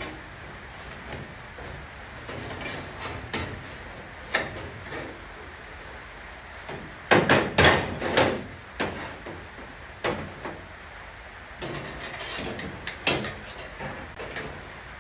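Sheet-metal knocks and taps as a car-body panel is worked into place, scattered single knocks with a loud burst of rapid knocks about seven seconds in and another group near the end.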